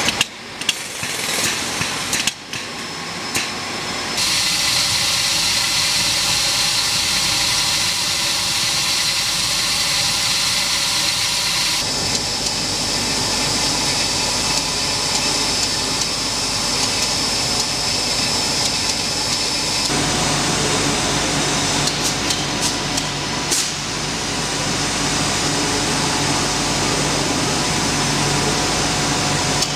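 Factory machinery running: a steady mechanical noise with high whining tones, with irregular knocks in the first few seconds. The sound changes abruptly about 4, 12 and 20 seconds in.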